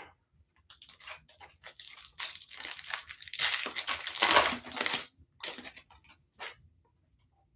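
Foil wrapper of a 2021 Bowman baseball card pack being torn open and crinkled, in short irregular rustles with the loudest tearing about three and a half to five seconds in.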